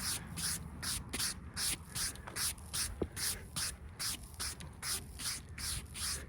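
Bristle brush swept briskly back and forth over a freshly milled oak slab, about three strokes a second, with one sharp click about three seconds in.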